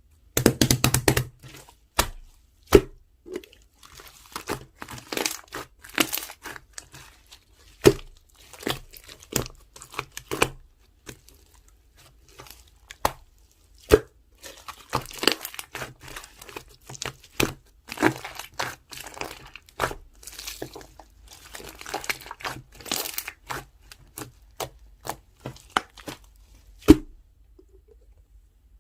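Green pearl slime mixed with sprinkles being squished, stretched and pressed by hand, giving off irregular sticky pops, clicks and crackles. One loud snap comes near the end.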